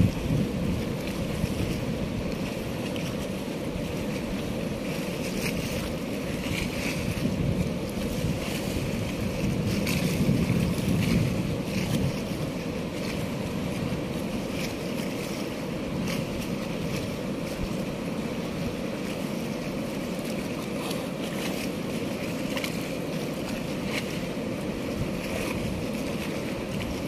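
Steady rush of fast-flowing, turbulent river water below a gated barrage, with wind buffeting the microphone and a stronger gust about ten seconds in.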